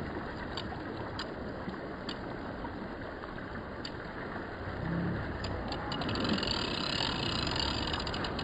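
Steady wash of sea and wind on the microphone, with a few scattered clicks. From about two-thirds of the way in, a Cinnetic Blue Win 4000 spinning reel is cranked, its gears ticking rapidly as the jig is retrieved.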